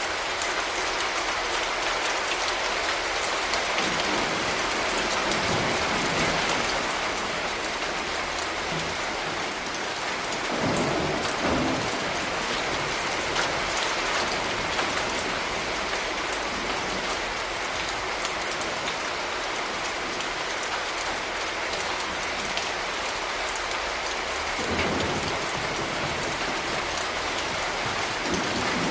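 Steady heavy rain falling on hard surfaces, an even hiss with scattered drop ticks. Low rumbles swell up a few times: about four seconds in, around eleven seconds, and again near the end.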